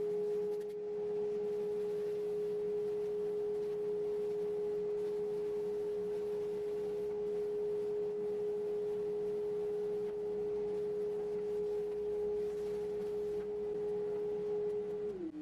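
Steady whine of a motor spinning at constant speed, most likely the CNC router's spindle, holding one pitch; right at the end the pitch starts to fall as it spins down.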